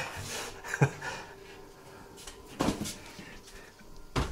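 A few short knocks and thumps as someone moves about inside a small wooden sauna, the loudest near the end, over a faint steady hum.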